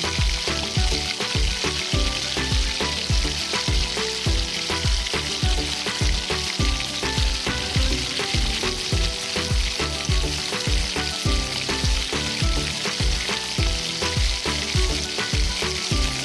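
Batter-coated chicken pieces deep-frying in hot oil: a steady, dense sizzle. Background music with a steady beat plays underneath.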